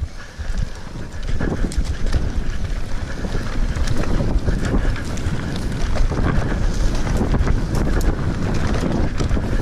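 Mountain bike ridden down a rough, grassy dirt trail: wind buffets the microphone over a steady rumble of tyres on the ground, with frequent sharp clicks and rattles from the bike over the bumps.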